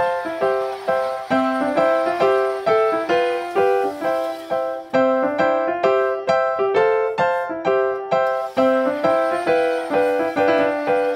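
Background music: a piano or electric keyboard playing a light, repeating melody in a steady rhythm of about three notes a second.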